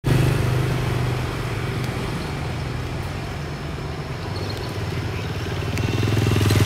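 An engine running steadily nearby, its hum growing a little louder near the end before cutting off suddenly.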